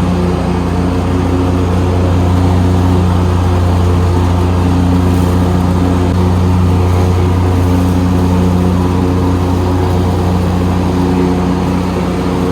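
Exmark Lazer Z 72-inch zero-turn mower running steadily while mowing pasture grass: an even engine hum with a noisy whirr over it.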